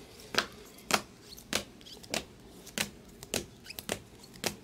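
Stack of plastic-sleeved trading cards being flipped through one at a time, about eight light clicks, roughly one every half second or so, as each card is moved.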